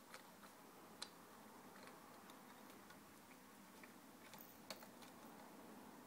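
Faint, sparse clicks of a green-cheeked conure's beak working a small plastic toy, a second or more apart, the sharpest about a second in.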